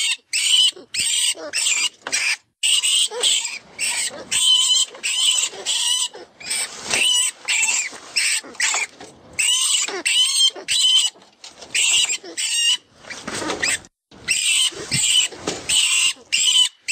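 FoxPro 'Vermin Pest Control' recorded rodent distress call, a predator call for luring foxes: short, shrill rat squeaks and squeals repeating about three times a second, with brief pauses and a longer squeal a little past the middle.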